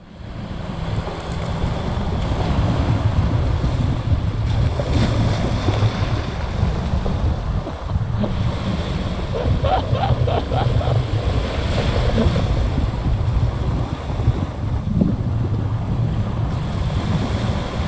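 Wind buffeting the microphone over small waves washing onto a sandy beach, as a steady rumbling hiss that comes in suddenly at the start.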